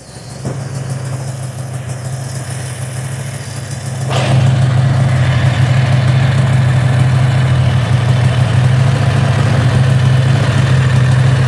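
Predator 670cc V-twin engine running steadily at idle, firing on both cylinders without surging, the pulsing seemingly cured by an electric fuel pump with a return line to the tank. It grows suddenly louder about four seconds in, with no change in engine speed.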